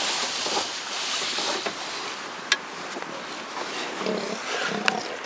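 South American sea lion lying on pavement, giving low rough grunts from about four seconds in, over a steady hiss.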